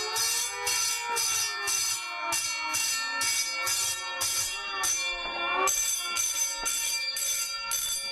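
Fire alarm bells and a siren sounding together. The bells strike in regular pulses about two to three times a second over a siren whose pitch rises and falls.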